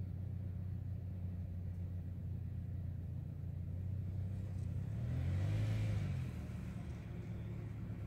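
A car passes by, swelling to its loudest about five and a half seconds in and then fading, over a steady low rumble.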